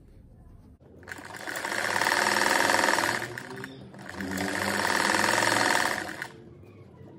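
Sewing machine stitching a seam in two runs, the first about three seconds long and building up in speed, the second about two seconds, with a brief pause between them.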